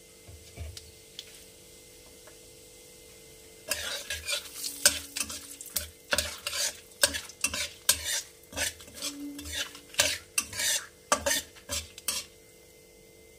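A steel spatula stirring and scraping around a metal kadai in a run of irregular clinks and scrapes that starts about four seconds in, while whole cumin, dried red chillies and bay leaves sizzle lightly in hot mustard oil.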